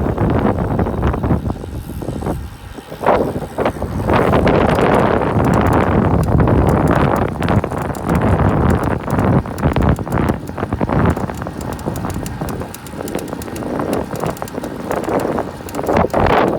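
A 2017 Cannondale CAAD12 aluminium road bike creaking and clicking again and again, over a steady rushing noise.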